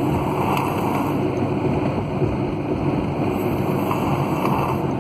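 Loud, steady rumbling noise, starting abruptly just before and holding even.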